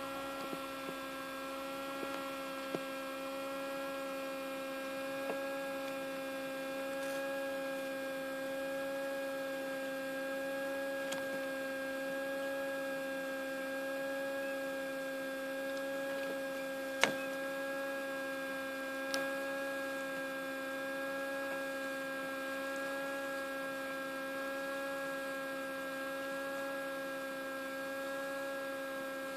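Small egg incubator's fan motor humming steadily, with a few faint clicks and one sharper click past the middle.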